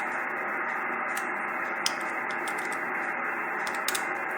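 Steady static hiss from an HF amateur radio transceiver's speaker: open-channel band noise with no signal on it. A few faint clicks sound over it, twice a little louder, near the middle and toward the end.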